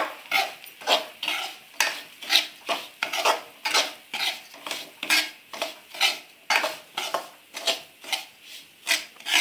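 Spatula scraping and stirring semolina around a metal kadhai in regular strokes, about two a second, as the semolina is roasted in ghee.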